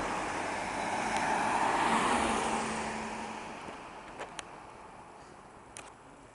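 A car passing close by on the road: tyre and engine noise swells to a peak about two seconds in, then fades away.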